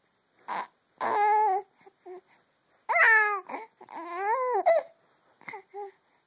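A baby vocalizing in three drawn-out, high-pitched cry-like wails with short breaths between them; the last one rises in pitch and then falls.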